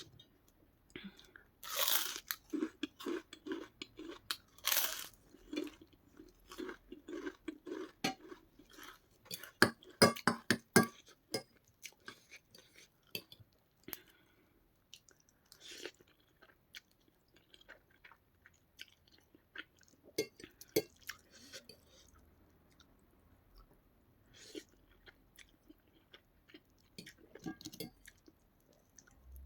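Close-miked biting and chewing of crisp white papad. Loud crunches come about 2 s and 5 s in, with a rapid cluster of crunches around 10 s, followed by quieter, sparser chewing.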